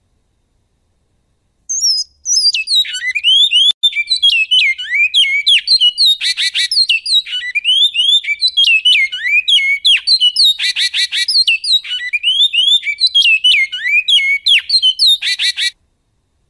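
Great-billed seed-finch (bicudo) singing its goiano-style song: one long phrase of quick, down-slurred whistled notes with three short buzzy rattles mixed in. It starts about two seconds in and stops shortly before the end.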